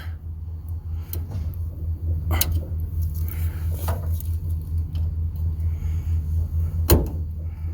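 Scattered light metallic clicks and knocks from working on a steel tool box's bent drawer slide, the sharpest knock near the end, over a steady low hum.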